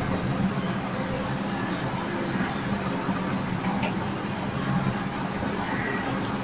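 Steady low background rumble with a faint hum, like road traffic. A faint click comes about four seconds in and a sharp click near the end.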